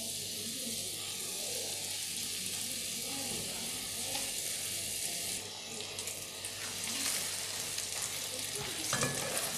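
Floured perch fillets sizzling steadily as they fry in butter in a pan. Near the end, a spatula briefly scrapes the pan as it moves the fillets.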